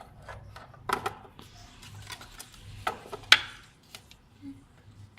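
Clicks and knocks of a plastic window bird feeder being handled as its removable tray is fitted in place: a few sharp clicks, the loudest a little past three seconds in.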